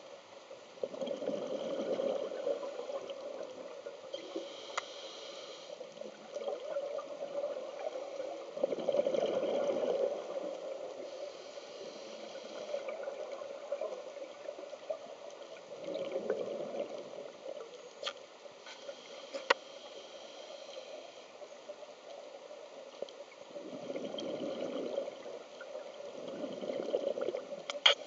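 A scuba diver's exhaled bubbles gurgling out of the regulator underwater, in recurring bursts every several seconds as the diver breathes. A few sharp clicks are heard between the bursts.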